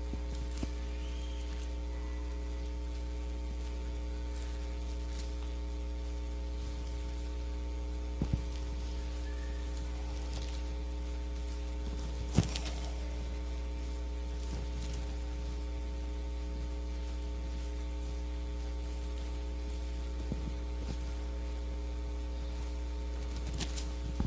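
Steady electrical mains hum from the sound system, with two brief clicks about 8 and 12 seconds in.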